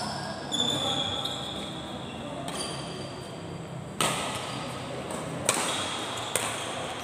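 Badminton doubles rally: rackets striking the shuttlecock about five times, every second or two, the sharpest hit about four seconds in, with shoes squeaking on the court floor, echoing in a large hall.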